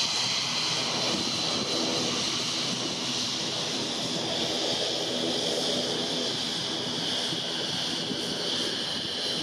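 Airbus A320-232 jet airliner on approach to land, its IAE V2500 turbofan engines giving a steady high whine over a broad hiss.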